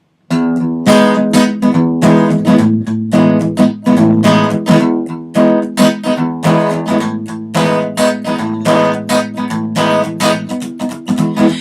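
Acoustic guitar strumming chords in a steady rhythm, the instrumental intro before the vocal comes in. It starts about a third of a second in.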